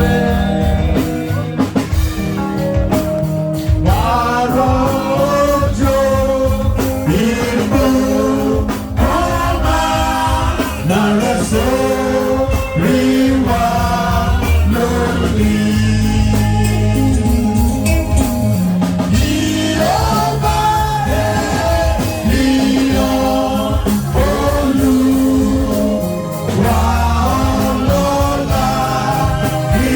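Gospel music: singing over a band with a steady bass line, cutting in suddenly.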